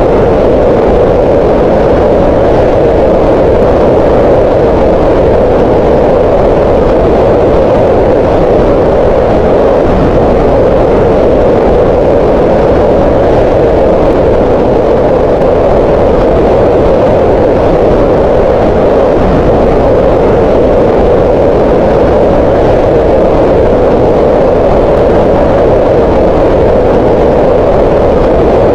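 Green noise: a steady, loud, unchanging hiss, strongest in the middle range around 500 Hz.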